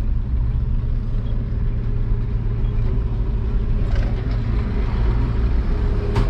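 Truck engine running with a steady low rumble, heard from inside the cab while driving slowly. A single sharp click or knock sounds near the end.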